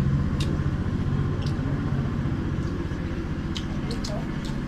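A small engine running steadily, a low pulsing drone, with a few light clicks over it.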